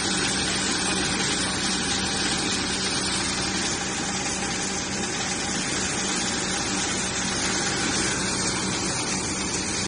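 Multi-function thresher running steadily: an even, dense mechanical noise with a constant low hum.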